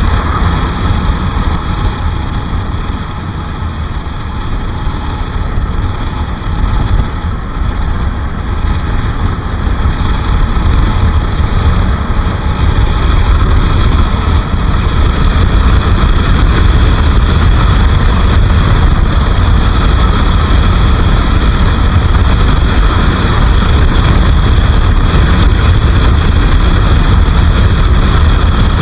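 A Bajaj Pulsar RS 200's single-cylinder engine running as the motorcycle is ridden, over a heavy low rumble. It gets louder about a dozen seconds in and then holds steady.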